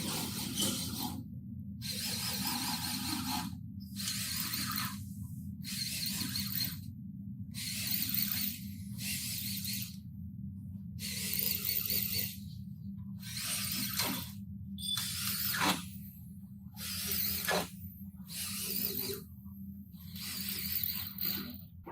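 A workshop tool running in repeated bursts of about a second each, with short gaps between them, over a steady low hum.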